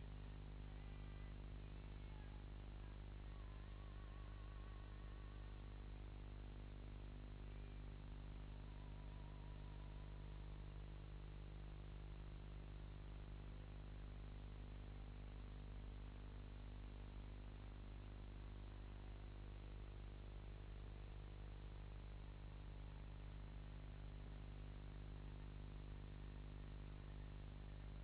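Steady electrical hum with a faint hiss and thin high whine, unchanging throughout, with no other sound: the blank soundtrack of a silent film transfer.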